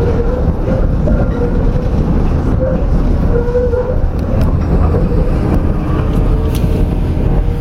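Tram running over rail track through a junction: a steady rumble of wheels on rails with a wavering whine, and a few sharp clicks as the wheels pass over track crossings in the second half.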